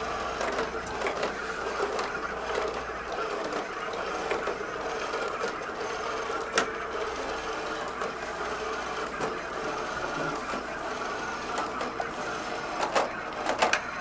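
iRobot Create robot's drive motors whirring steadily as it drives across carpet, with a few sharp clicks, a cluster of them near the end.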